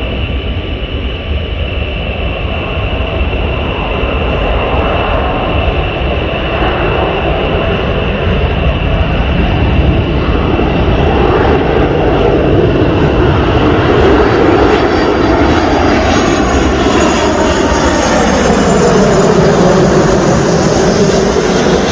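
Airbus A330-243F freighter's Rolls-Royce Trent 700 turbofans on final approach with gear down, growing gradually louder as it flies low overhead. The jet noise sweeps down in pitch as it passes near the end.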